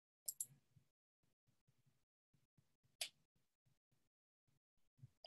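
Near silence broken by a few faint, sharp clicks: two in quick succession near the start, one about three seconds in, and another at the end.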